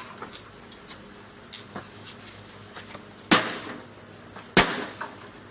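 Two hard blows on a metal-and-glass kitchen appliance being smashed, about a second and a quarter apart and past the middle, each ringing briefly, with a couple of light knocks before them.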